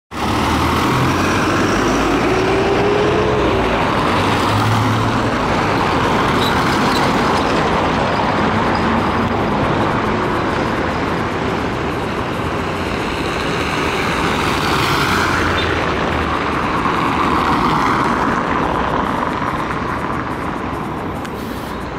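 Scania coach's diesel engine running as the bus pulls slowly out and rolls toward the listener, a loud, steady drive with little change in pitch.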